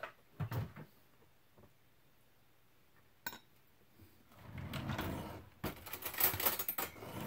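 Kitchen handling sounds: a sharp click about three seconds in, then a couple of seconds of clattering and rustling, like a drawer and utensils being handled while a fork is fetched.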